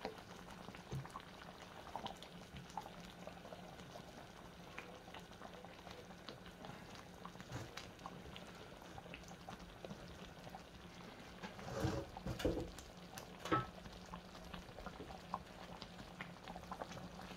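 Thick flour gravy bubbling at the boil in a frying pan, with many small pops of bursting bubbles. A few louder knocks and scrapes of a wooden spoon and metal spatula against the pan come about twelve and again about thirteen and a half seconds in.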